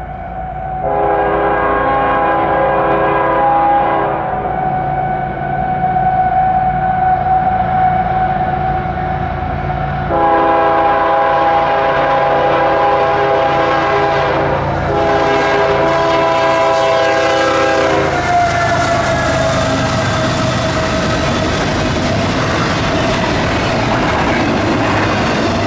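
Canadian Pacific diesel locomotive sounding its horn in several long blasts as it approaches. The horn's pitch falls as the locomotive passes, and the rumble and wheel clatter of the passing double-stack container cars take over.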